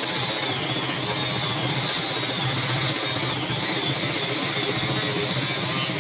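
Computerized embroidery machine running steadily, its needle stitching a lettering design while the hoop moves beneath it.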